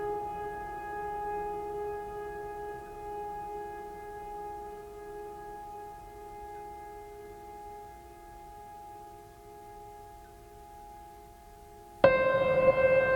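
A long, held horn-like tone that slowly fades, then a louder held tone, slightly higher, starts abruptly near the end.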